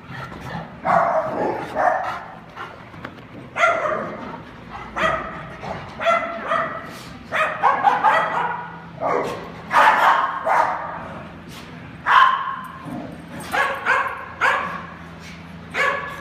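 Dogs barking over and over in short, irregular bursts, with a faint steady low hum beneath.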